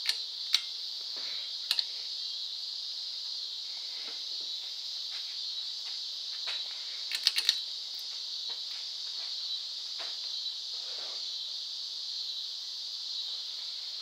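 Sharp clicks from a Hampton Bay St Claire ceiling fan's pull-chain switch: a few near the start and a quick cluster of three about seven seconds in, as the fan is switched on and starts turning. The clicks sit over a steady high hiss.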